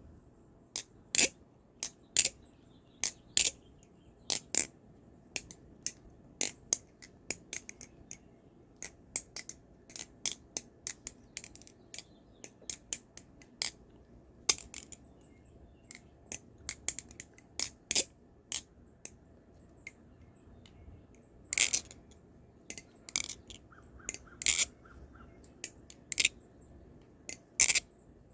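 Krake Raken V3 balisong trainer being flipped: irregular sharp clicks and clacks of the handles and blade, a few much louder than the rest, its pivots oiled with Carbon Honey.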